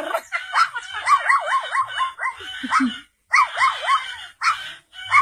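A man imitating a small dog yapping with his voice: a fast run of short, high yaps, with a brief break about three seconds in.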